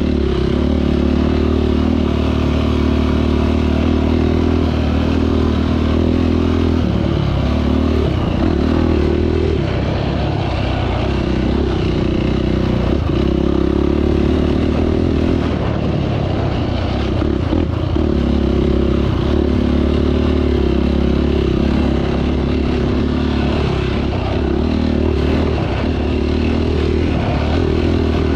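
Engine of an off-road 450 machine running continuously while riding a trail. The throttle comes on and off several times, so the engine note shifts and wavers, with rattling over rough ground.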